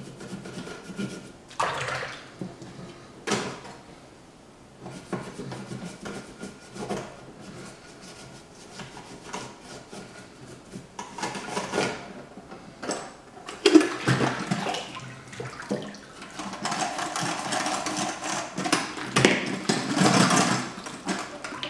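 Soft toothbrush scrubbing cleanser over the painted stamped-steel body of a prewar Lionel standard gauge car in quick, scratchy strokes. From about two thirds of the way in, water rushes steadily over it, most likely as the car is rinsed in the sink.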